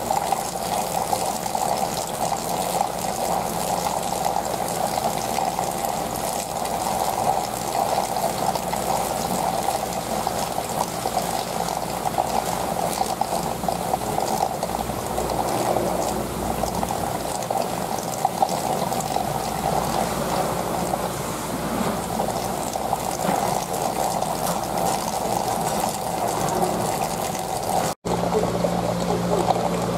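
Water bubbling and running steadily in an aquarium tank. Near the end the sound drops out for a moment, then continues with a low steady hum added.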